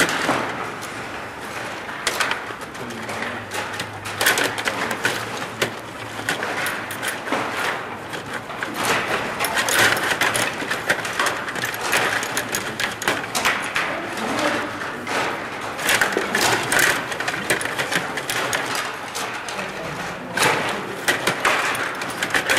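Rod table hockey game in play: an irregular clatter of plastic clicks and knocks as the rods are pushed and spun and the puck strikes the sticks and boards, with faster flurries at moments during the play.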